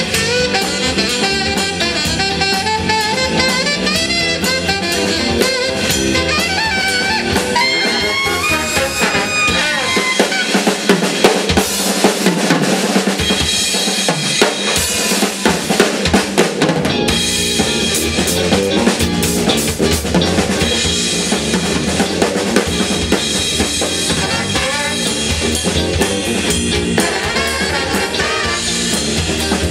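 Live funk band playing, a horn section of saxophones and trombone over drum kit and bass. About ten seconds in, the bass and horns drop back and the drums play a break for several seconds before the full band comes back in.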